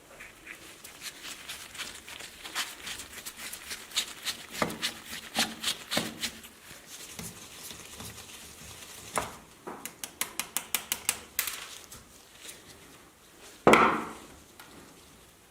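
Clicking and clinking of small hard parts and tools being handled, with a quick run of clicks in the middle and one loud knock near the end.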